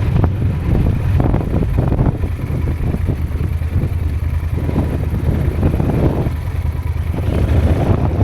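Motorcycle engine running while the bike rides onto beach sand, with wind buffeting the microphone.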